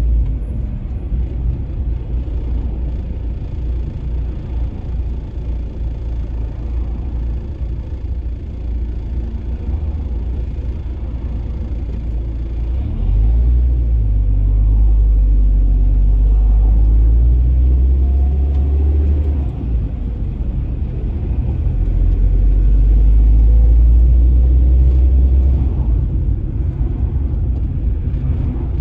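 Low, steady rumble of a car driving in city traffic, heard from inside the cabin: engine and road noise. It grows louder for a few seconds about halfway through and again a little later.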